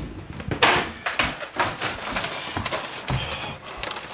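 Handling noise: a string of irregular taps and thumps, with a short rustle a little over half a second in, as the camera and a plush toy are moved around.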